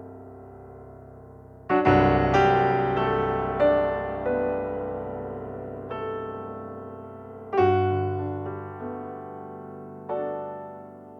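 Background piano music: slow chords and notes struck every second or two, each ringing and fading away.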